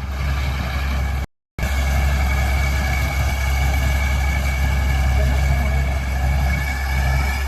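Avatar Greenfield 6500 combine harvester running steadily: a low engine drone with a high, even whine above it. The sound cuts out completely for a moment about a second in.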